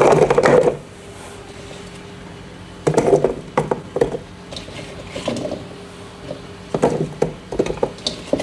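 Kitchen handling sounds: scattered clatters and knocks of containers and utensils being moved, in several short bursts over a steady low hum.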